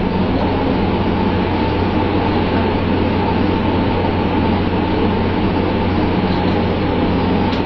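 Fishing boat's engine running steadily: a constant low drone under an even rushing noise, with no change in pitch or level.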